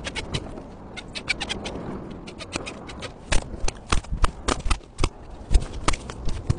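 Quick, irregular clicks and knocks of hand and tool work on an asphalt-shingle roof, with louder, heavier knocks in the second half.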